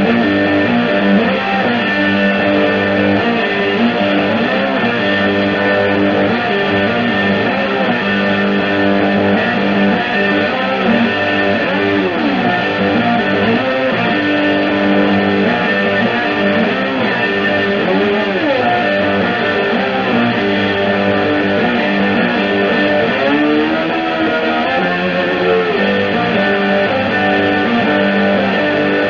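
Double-neck electric guitar played through a Vox amplifier: a continuous run of held chords and notes, with bent notes around the middle and again near the end.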